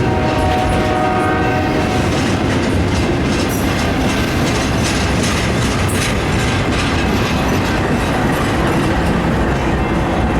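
Union Pacific freight train passing close by, its wheels rumbling and clattering over the rails. A horn chord sounds at the start and fades out within about two seconds.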